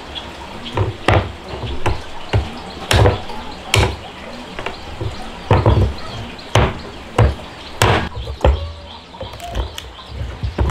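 Repeated chopping strikes at an uneven pace, roughly one a second, each a sharp knock with a dull thud beneath it.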